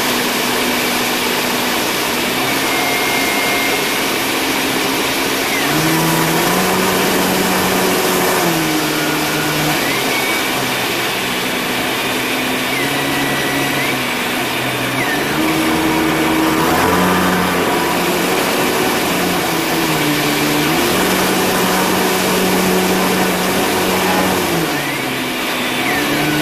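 Piper Pawnee's piston engine and propeller droning inside the cockpit in flight, loud and steady, with its pitch stepping up and down every few seconds as engine speed changes.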